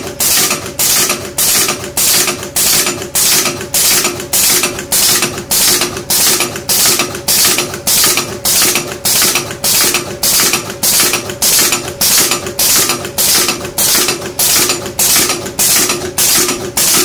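Automatic press making aluminium staples from strip, cycling steadily at about two strokes a second, each stroke a sharp metallic clack, over a steady machine hum.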